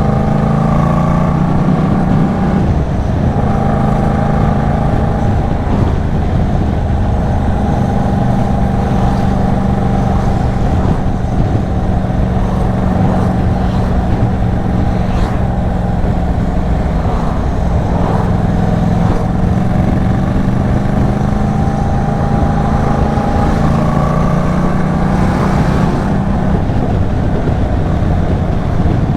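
Yamaha MT-07's parallel-twin engine through an Arashi aftermarket exhaust, ridden hard: the engine note climbs with the revs and drops back at gear changes near the start and again near the end, over a steady rush of wind and road noise.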